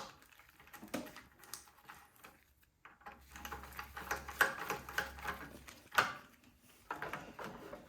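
Hand tools clicking and rattling against snowblower engine parts as the electric starter's plug-in housing is worked loose, with a run of small ticks and a sharper click about six seconds in.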